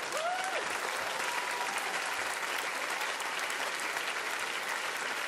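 Studio audience applauding, a dense steady clapping that holds at the same level throughout.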